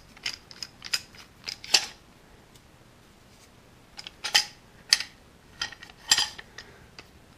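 Steel F-clamp being handled: a run of sharp metallic clinks and rattles as the sliding jaw and bar knock together, in two clusters with a quiet gap of about two seconds in the middle.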